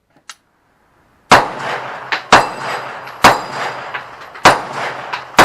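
About six gunshots at uneven intervals, starting about a second in, with steel plate targets ringing between them.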